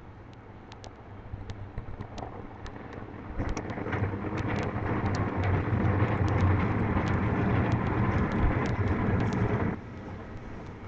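Computer keyboard keys tapped in an irregular run of short clicks while an email address is typed. A loud steady rushing noise with a low hum joins about three and a half seconds in and cuts off suddenly near the end.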